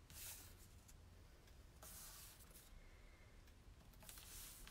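Faint rubbing of fingertips smoothing a glued paper spine lining onto a book's text block, in three soft strokes: at the start, about two seconds in and near the end.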